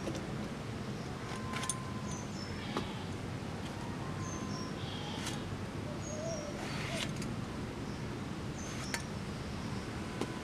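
Eggplant being cut on a fixed blade set in a wooden block, with the pieces dropped into an aluminium pot: a sharp click every few seconds. A bird repeats a short, high, falling chirp every two to three seconds in the background.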